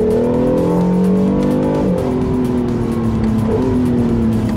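Honda NSX's twin-turbo 3.5-litre V6, heard from inside the cabin, climbing in revs under acceleration. About two seconds in the pitch drops sharply at a gear change, then it runs on at a lower, fairly steady pitch.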